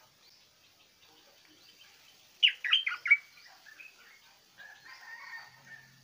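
Stripe-throated bulbul calling: a loud burst of quick, sweeping notes about two and a half seconds in, followed by softer chattering notes and a short held whistle near the end.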